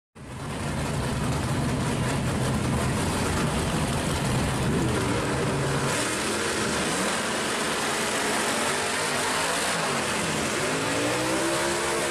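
1965 Pontiac GTO drag car's engine running loudly. In the second half its revs rise and fall several times.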